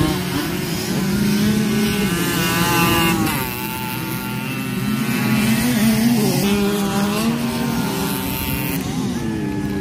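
Several small 50cc racing motorcycle engines running at once, their pitch rising and falling as the bikes rev and pass by.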